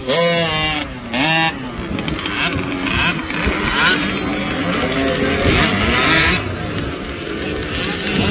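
Youth motocross bike engines revving in quick throttle blips, then several dirt bikes running on the track at once, their engine pitches rising and falling over each other.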